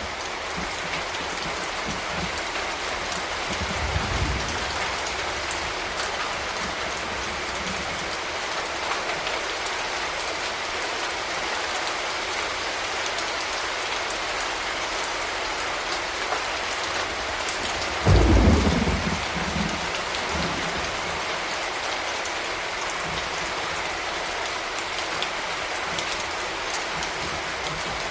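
Steady rain falling, with a low roll of thunder about four seconds in and a louder, sudden thunderclap about eighteen seconds in that rumbles away over a second or two.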